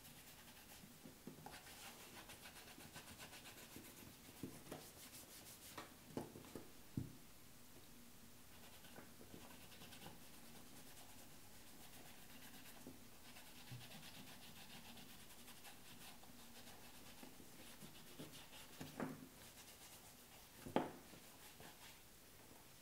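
Faint rubbing of a cloth rag over a leather knife sheath, working in a pine tar, linseed oil and beeswax balm, with a few light knocks, the loudest near the end.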